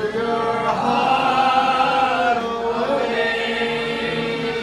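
Group sing-along: a man singing into a microphone with many voices joining in, holding a long steady note through the second half.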